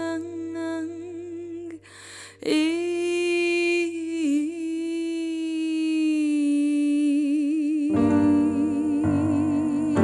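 A woman's voice sings long held notes with vibrato over a soft, steady low keyboard tone, with a short breath about two seconds in. Near the end, piano chords come in under the voice.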